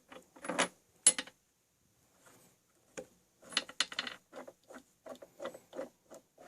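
Metal engine parts and tools clinking and scraping as they are handled: two sharp clatters in the first second or so, then a quiet moment, then a run of short knocks and clinks.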